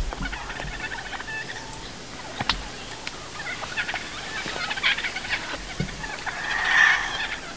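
Wild turkey toms gobbling: several rattling gobbles, the loudest one near the end. A single sharp click sounds about two and a half seconds in.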